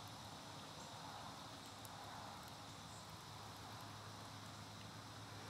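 Quiet woodland ambience: faint, steady insect chirring over a soft, even hiss.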